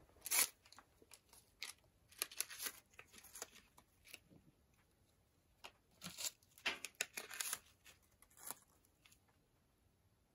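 Paper tea-bag wrappers being torn open and crinkled by hand, in several short clusters of crisp tearing and rustling, the sharpest just after the start.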